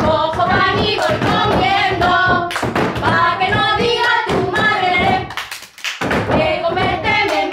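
Voices singing a folk song to a rhythm beaten by hands slapping and clapping on wooden tabletops. The singing and slaps break off briefly about two-thirds of the way through, then resume.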